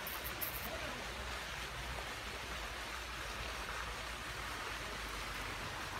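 Steady hiss of falling, splashing water, with a low rumble underneath. A few faint high ticks right at the start.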